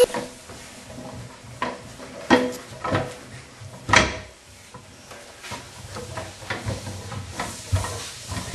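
A child's wooden push cart clattering as it is pushed over wooden floorboards. Several sharp knocks come in the first four seconds, the loudest about four seconds in, followed by a low rolling rumble of its wheels with lighter knocks.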